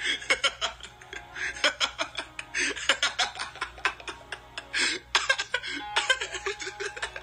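A woman laughing hard in many short bursts, over background music.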